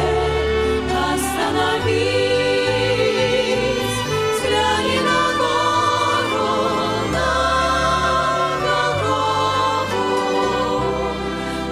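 Music: a choir singing held, wavering notes over an instrumental accompaniment with sustained bass notes.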